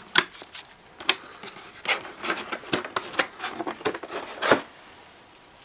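Plastic CPU packaging being handled and pried at: an irregular series of sharp clicks and rustles, with the loudest snap near the end.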